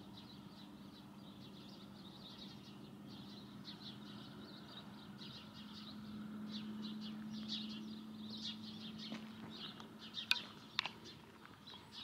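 Many small birds chirping and twittering, with a faint steady low hum underneath that grows slightly louder midway. A couple of sharp clicks sound near the end.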